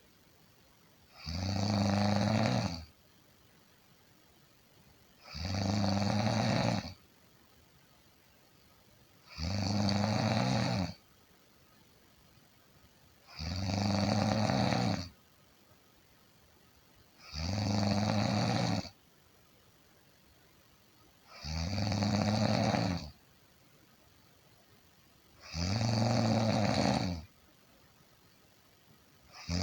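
A person snoring in a slow, even rhythm: one snore of about a second and a half roughly every four seconds, with quiet gaps between.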